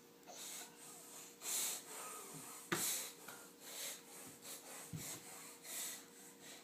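A baby making a string of short, breathy funny noises, with one sharp knock about three seconds in.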